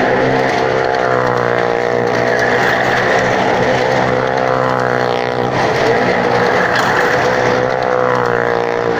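Car engine running hard at high, steady revs as the car circles the near-vertical wooden wall of a well-of-death drum. The pitch swings down and back up about halfway through as it sweeps past.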